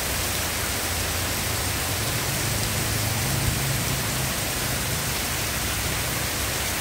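Heavy rain pouring steadily onto trees, ground and standing floodwater, an even hiss with a low rumble underneath.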